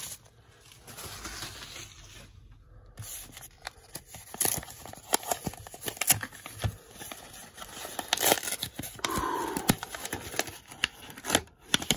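Paper wrapping and tape being pulled open by hand: irregular crinkling, rustling and short tearing noises, sparse for the first few seconds and then busier.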